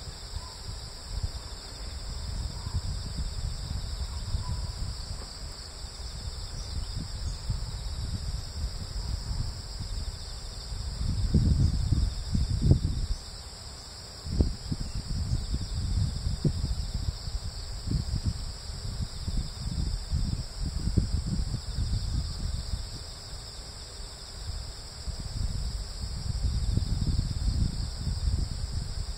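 A steady, high-pitched insect chorus runs on unchanged, under an irregular low rumble that swells and fades and is loudest about eleven to thirteen seconds in.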